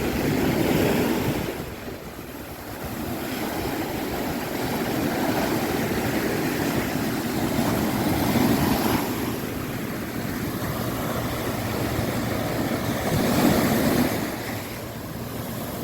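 Caribbean surf breaking on a beach, a steady wash of waves that swells about a second in, again midway and once more near the end.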